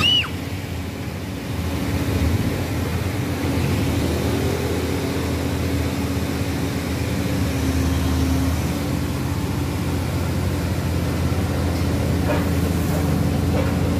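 Engine running steadily, a low drone with a steady hum, with a short high chirp right at the start.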